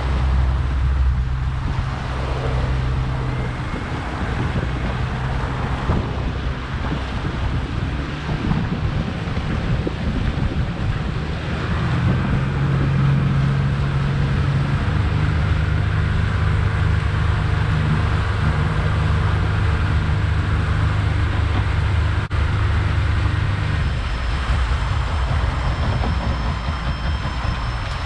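Honda four-stroke outboard running hard under way with wind and water noise; its engine note shifts partway through as it is run to try to flush out a fault. Near the end, a steady high-pitched warning alarm from the motor starts sounding over the engine.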